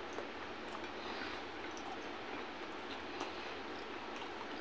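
A steady hiss with a few faint clicks and smacks of eating by hand: chewing and fingers picking up rice.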